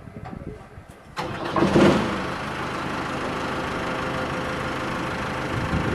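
Forklift engine starting about a second in, flaring briefly, then settling into a steady idle.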